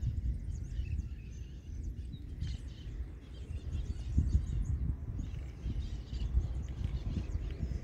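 Gusty low rumble of wind on the microphone, with small birds chirping now and then in the background.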